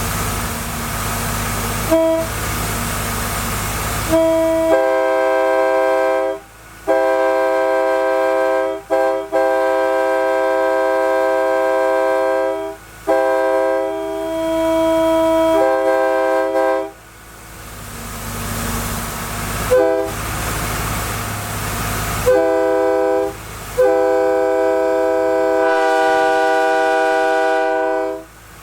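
A multi-chime locomotive air horn is blown in a series of long and short blasts, each a steady chord of several notes. A steady rushing noise fills the gaps, with a longer stretch of it about two-thirds of the way through.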